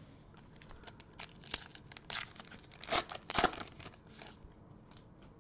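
Foil wrapper of a Panini Prestige football card pack crinkling and tearing as it is ripped open by hand: a run of sharp crackles, loudest about three seconds in.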